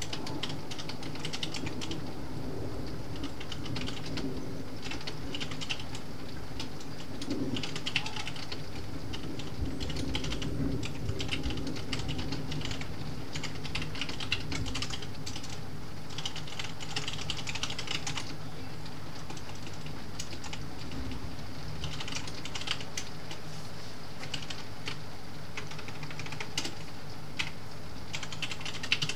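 Computer keyboard being typed on in short bursts of rapid keystrokes with pauses between, over a steady low background noise.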